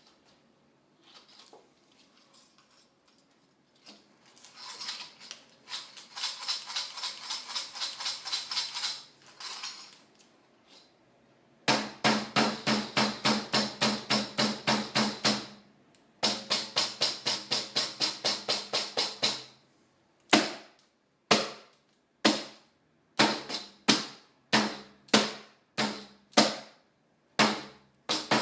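Capoeira pandeiro, a frame drum with metal jingles, built from recycled materials, being played. It starts softly with light shaking, then runs of fast, even strokes with ringing jingles and the drum head sounding under them, and after about twenty seconds turns to separate sharp strikes with short gaps in a rhythm.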